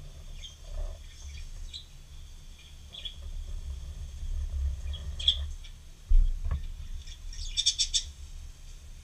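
Permanent marker (Sharpie) squeaking on paper as lines are inked: a few short squeaks, then a quick run of short strokes near the end. A dull bump on the desk about six seconds in is the loudest moment.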